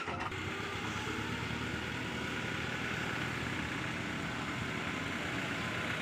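A light-duty dump truck's engine running steadily while the truck tips its raised bed to unload soil.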